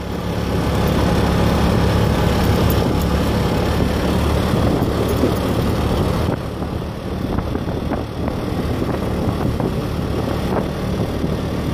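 Motorbike engine running steadily while riding, over rushing road and wind noise. The sound drops a little about six seconds in.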